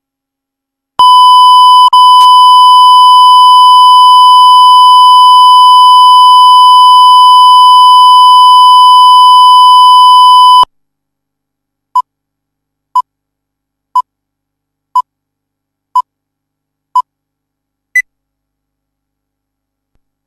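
Steady, very loud line-up reference tone played with broadcast colour bars, held for about ten seconds. It is followed by six short beeps one second apart and a final higher-pitched beep: a tape leader countdown.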